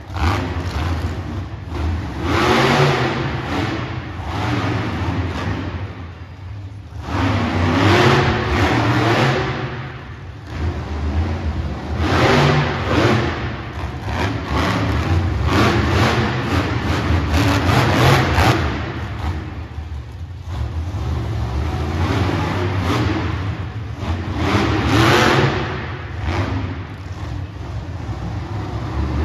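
Monster truck engine revving hard in repeated surges, rising and falling every few seconds as the truck drives about and climbs over crushed cars.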